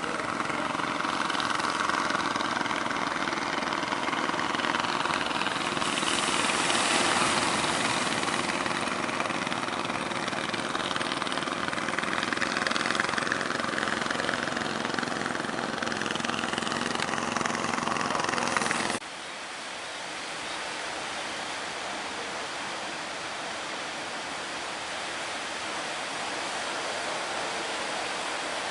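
A fishing boat's engine running under a steady rush of surf and wind. About two-thirds of the way through it cuts off abruptly to a quieter, even rush of waves.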